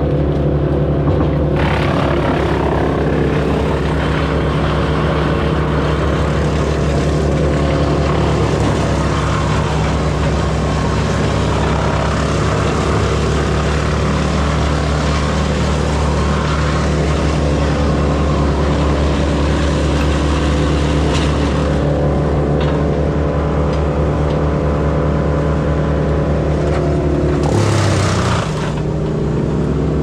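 Excavator's diesel engine running steadily with hydraulic work noise. The engine note drops briefly a couple of seconds before the end, then picks up again.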